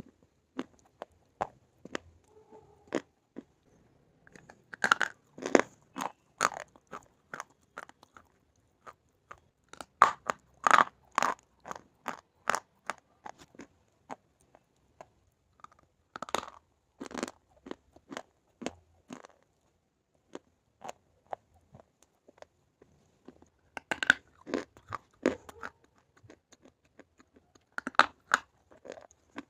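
A person biting and chewing a slate bar: sharp, dry crunches that come in clusters with short pauses between them.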